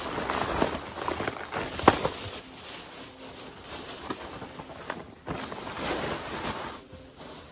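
Thin plastic shopping bag rustling and crinkling as it is opened and handled and things are pulled out of it, with one sharp, louder crackle about two seconds in.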